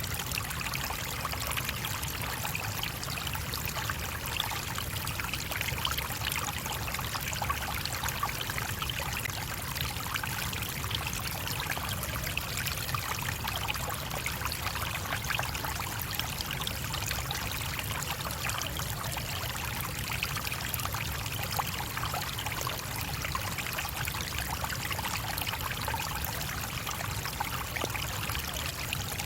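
A stream of water rushing and trickling over stones, a steady, unbroken flow.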